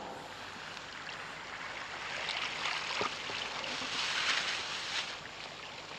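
Sea water washing and surging: a rush of noise that swells over the middle seconds, peaks about four seconds in, and falls back soon after.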